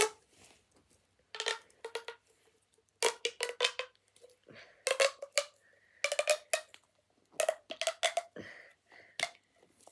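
Hard plastic fidget toys being handled and pushed together, clicking and clacking in short clusters of rapid clicks about every second.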